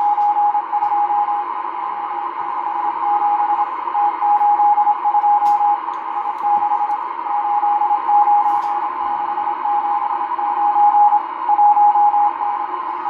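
M12 numbers station sending Morse code numbers, received on a Realistic DX-394 shortwave receiver: a single steady tone keyed on and off in dots and dashes over continuous band hiss, with a few faint crackles of static.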